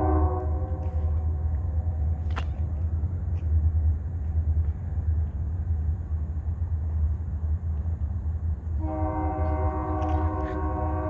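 Wheeling & Lake Erie locomotive 291's air horn: a steady chord that cuts off just after the start, the heavy low rumble of the train going by, and the horn sounding again from about nine seconds in.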